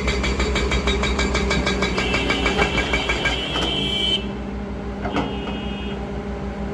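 Kobelco excavator's diesel engine running with a rapid, even pulse, and a high whine joins it about two seconds in. About four seconds in the whine stops and the sound abruptly turns duller.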